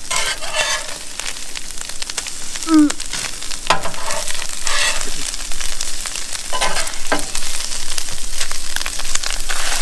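Chorizo and bacon frying in a pan with a steady sizzle and crackle. A utensil scrapes and stirs in the pan a few times.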